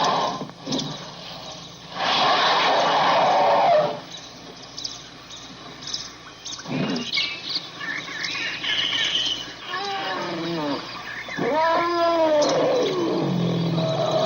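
Elephant calls: a short harsh blast at the start and a longer one about two seconds in, then several arching, rise-and-fall pitched calls around ten seconds in, and a low rumbling tone near the end. Birds chirp faintly in between.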